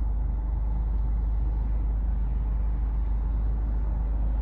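Steady low rumble and hiss of a car driving slowly, heard from inside the cabin.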